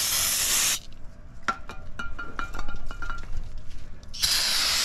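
Aerosol brake cleaner spraying onto a new brake rotor, a hiss that stops under a second in, to strip the rotor's anti-rust coating. A scatter of light metallic clinks follows, and a second spray burst starts near the end.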